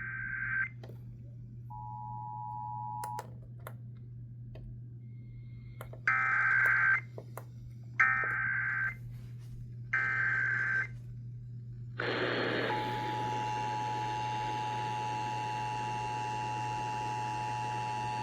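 Emergency Alert System tones for a Child Abduction Emergency: three one-second screeching SAME header data bursts about two seconds apart, then, after a brief burst of noise, the steady two-tone EAS attention signal. A short two-tone beep sounds about two seconds in, and a low mains hum runs underneath.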